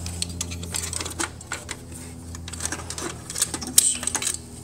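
Irregular clicks and knocks of an HP LaserJet 4250-series printer's plastic swing plate gear assembly against the sheet-metal side frame as it is worked up into its slot, with a steady low hum underneath.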